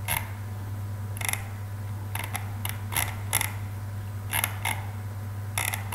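Computer mouse clicking: about a dozen sharp clicks at irregular intervals, some in quick pairs, over a steady low hum.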